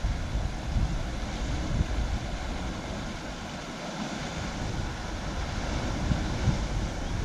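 Wind buffeting the microphone in uneven gusts, over a steady hiss of sea surf breaking against rock.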